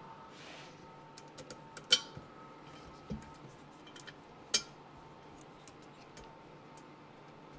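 Small metallic clicks and clinks of a bolt, washers and hand tools being worked into place while fitting an exhaust, with two sharper clinks about two and four and a half seconds in and a duller knock around three seconds.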